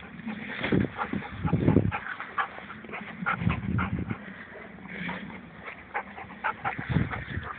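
A goldendoodle vocalizing in excitement as it chases a turning playground roundabout, in short irregular calls. Several loud low thuds and rumbles come through as well, the strongest in the first two seconds.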